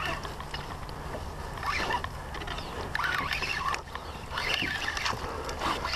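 Water sloshing and splashing irregularly against a plastic sit-on-top kayak hull, over a steady low rumble.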